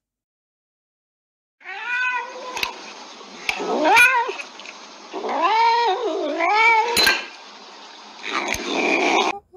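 A cat yowling in about four long, wavering meows, one rising steeply in pitch, with a few sharp clicks between the calls.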